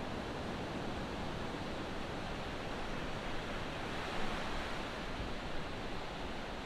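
Ocean surf washing onto a sandy beach: a steady rushing hiss of breaking waves.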